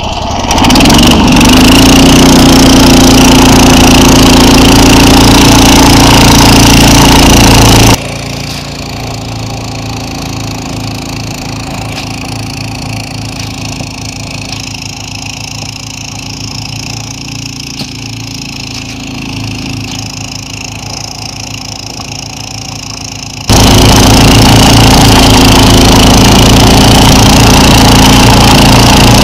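SnowDog tracked snow machine's small engine revving up about a second in and then running steadily under load as it travels over snow, loud and close. In the middle, for about fifteen seconds, the same steady running is heard more faintly, with a low pulsing throb.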